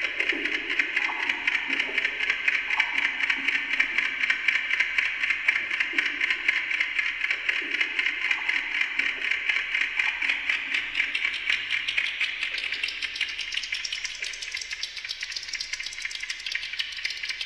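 Amplified ticking of a Westclox Silver Bell alarm clock multiplied by a digital delay system into a dense, fast clatter of overlapping ticks. In the second half the clatter shifts higher and brighter as the delays change.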